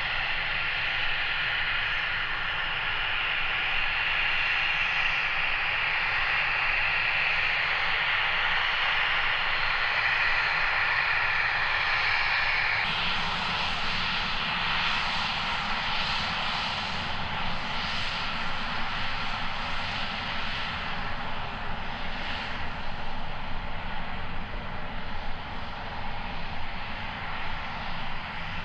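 Twin jet engines of an Embraer Phenom business jet whining steadily at taxi power as it rolls onto the runway and lines up. About 13 seconds in the sound changes abruptly to a deeper rumble with more hiss.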